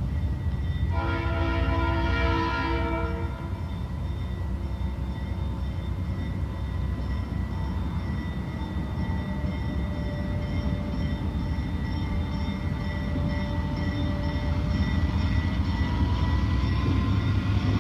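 Train horn sounding once for about two seconds, about a second in, over a train's diesel engine running steadily; the engine sound grows a little louder near the end.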